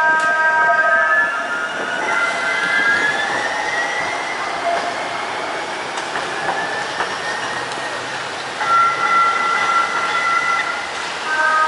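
Siemens S70 streetcar passing and pulling away. Its high electric whine rises in pitch over about two seconds as it gathers speed, then holds steady. High steady tones return near the end, over street noise.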